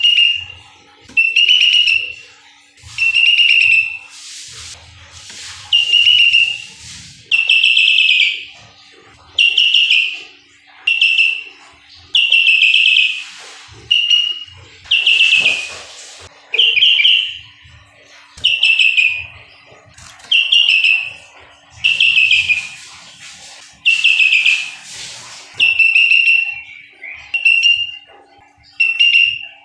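Bulbul (kutilang) calling over and over in loud, short, whistled chattering phrases, about one every second to a second and a half.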